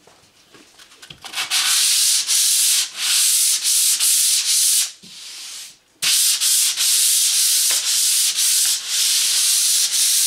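Hand sanding with 220-grit sandpaper on a sanding block, rubbed back and forth over the dried first coat of gloss enamel on a painted wood track surface. It is scuff-sanding between coats. Quick hissing strokes start about a second in, pause briefly near the middle, then carry on.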